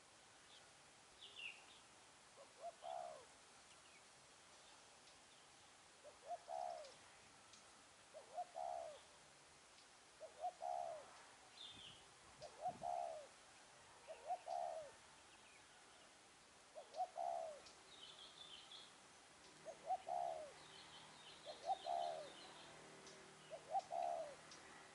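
Spotted dove cooing over and over, each phrase two short notes and a longer coo, repeated about every two seconds. Faint high chirps of small birds are heard between the phrases.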